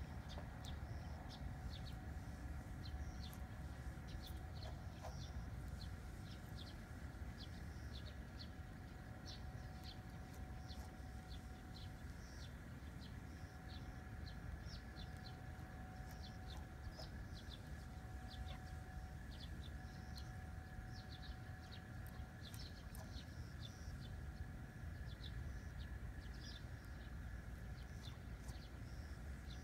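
Birds chirping, many short high calls, over a steady low rumble.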